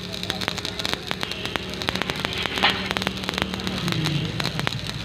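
Stick arc welding on steel angle iron: the arc crackling and sputtering steadily with frequent sharp pops, over a steady low hum.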